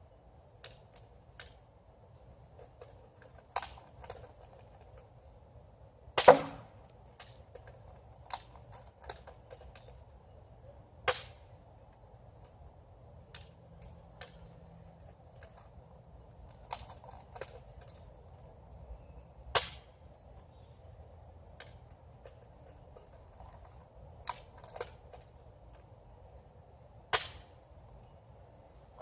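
Nerf dart blaster firing and being primed: sharp clacks every few seconds, the loudest about six seconds in, with smaller clicks in between. Low wind rumble on the microphone underneath.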